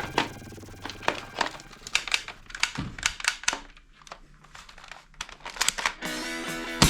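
Plastic toy gun being handled: a run of irregular light clicks and rattles. Background music comes back about six seconds in, and a single sharp snap comes near the end.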